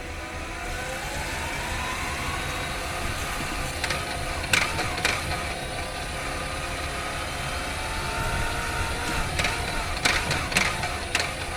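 Engine-bay sound of a 2019 Honda Freed Hybrid reversing: a whine rises in pitch over the first couple of seconds and then holds steady over a low hum. A few sharp clicks come about four and a half seconds in and again near the end.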